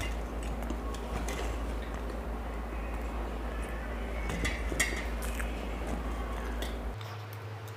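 Eating sounds: pav bread dipped into bhaji in a steel bowl and chewed, with scattered small clicks and clinks against the steel. Under them is a steady low hum that shifts to a slightly higher hum about seven seconds in.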